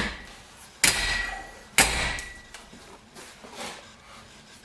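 Hammer blows on a metal auxiliary-belt tensioner: three sharp strikes about a second apart, each with a brief metallic ring, then a few fainter knocks.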